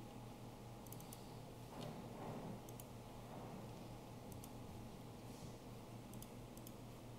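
Faint computer mouse clicks, several coming in quick pairs like double-clicks, over a steady low hum.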